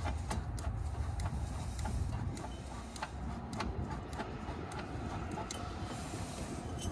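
A swaging tool being worked on the end of a copper refrigerant tube to expand it, giving irregular sharp metallic clicks over a low rumble.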